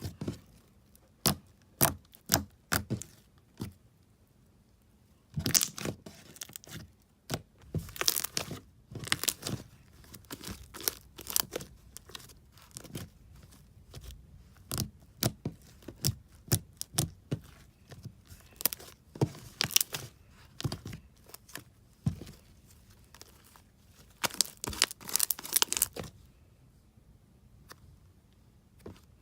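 Slime being squished and stretched: a long, irregular run of sharp pops and crackles, some in quick clusters, dying away near the end.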